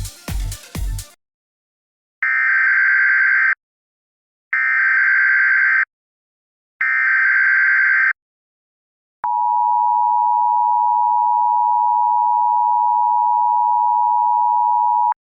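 Dance music cuts off about a second in, followed by three Emergency Alert System SAME header bursts, digital data tones each lasting about a second and a half. Then the two-tone EAS attention signal (853 and 960 Hz) sounds steadily for about six seconds, the alert signal that an emergency warning message is about to follow.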